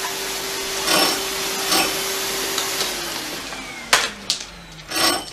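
Canister vacuum cleaner running with a steady whine, then switched off about three seconds in, its motor winding down in a falling tone. Two sharp knocks come near the end.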